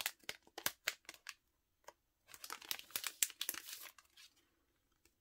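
Thin clear plastic photocard sleeves crinkling as they are handled: a spell of crackles, a short pause, then a denser spell of crinkling about two seconds in.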